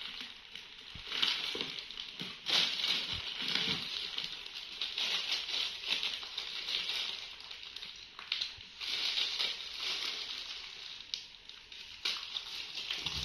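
Irregular crackling and rustling as gloved hands tear pods out of a halved jackfruit, the thin plastic gloves crinkling against the sticky flesh.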